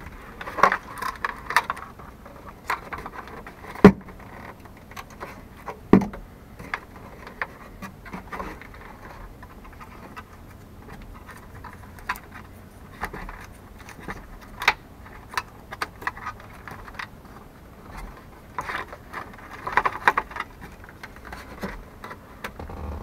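Plastic instrument-cluster housing of a 1978 El Camino dash being worked loose and pulled out by hand: scattered plastic clicks, rattles and rubbing, with two sharper knocks about four and six seconds in.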